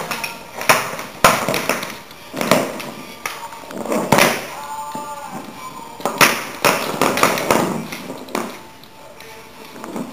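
Empty plastic bottle knocked and pushed across a wooden parquet floor by a small dog, giving a run of irregular hollow thumps and taps that ease off near the end.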